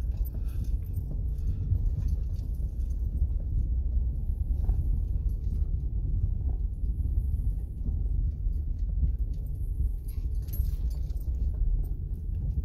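Minivan driving slowly over a rough, rutted dirt road, heard from inside the cabin: a steady low rumble of tyres and engine with frequent small rattles and knocks as the van jolts.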